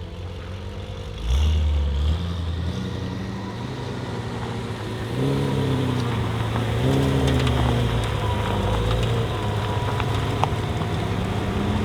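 Engine of a tuned BMW M5 F90, its twin-turbo V8 breathing through a Supersprint exhaust, running at low revs. Its pitch rises and falls slowly, and it grows louder about five seconds in.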